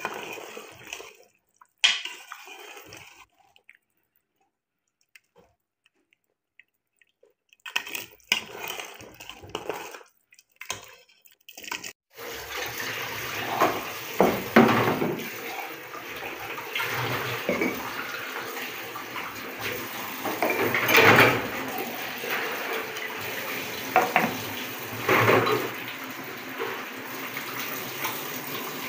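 Tap water running into a kitchen sink while dishes are washed by hand, with repeated clinks and knocks of steel pots and plates. This steady water sound begins about twelve seconds in, after short scraps of sound broken by stretches of silence.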